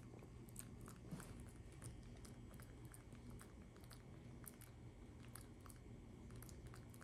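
Faint, irregular small clicks and smacks of a macaque grooming a person's hair and forehead, picking through the hair with its fingers and lips, over a low steady hum.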